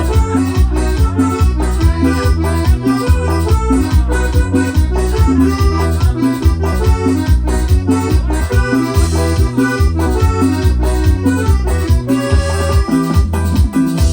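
Cumbia played on an electronic keyboard: an accordion-like lead melody over a steady bass and percussion beat.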